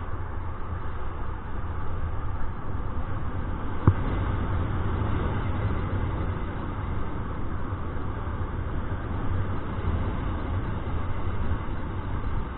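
Wind rushing over a paraglider pilot's camera microphone in flight, a steady low buffeting rumble, with one sharp click about four seconds in.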